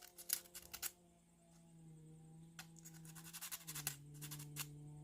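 Faint, short scratchy strokes and clicks from small plywood kit parts being worked by hand, typical of sandpaper rubbing at the small holding lugs, in clusters near the start and again in the second half. A faint low hum runs underneath.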